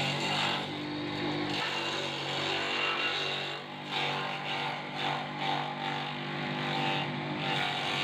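Small electric-motor grass chopper (chaff cutter) running with a steady hum, its spinning blades shredding leafy branches as they are fed in. The chopping noise rises and falls as the leaves go through.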